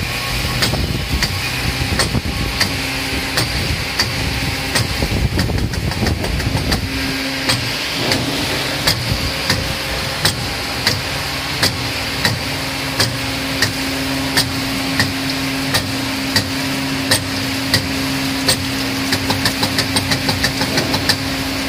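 Vertical cylinder honing machine running, its hone stroking in a cylinder bore of a Toyota 22R engine block. A steady motor hum, with a regular click a little more than once a second.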